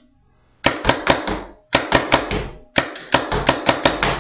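Paintball marker with a 7-inch FLASC barrel and silencer tip firing rapid strings of shots, several a second, each a sharp crack with a short tail. There is a brief pause between strings.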